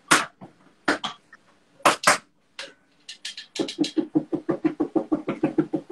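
A spoon knocking against a saucepan a few times, then rapid, even stirring strokes through a thick tamarind and chilli jam, about eight a second, in the second half.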